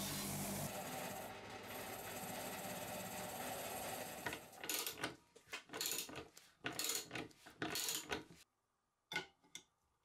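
An Einhell bench grinder's wheel running against the steel cutting grid of the chip cutter with a steady hum and rubbing. After about four seconds a socket ratchet drives a lag screw into a wooden block in short, uneven strokes, and then it goes quiet except for two light metal clicks near the end.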